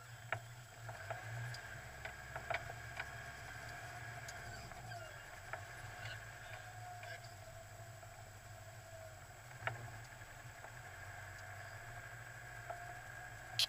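Off-road 4x4's engine running steadily at low revs as it crawls over a rutted mud track, with a wavering whine above it and occasional sharp knocks and rattles as the vehicle jolts over bumps.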